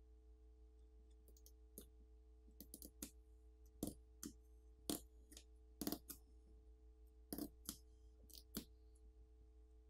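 Faint, irregular clicks and crackles from prying a smartphone's glued-in battery out of its frame by hand with a plastic pry tool, about a dozen of them, the loudest near the middle.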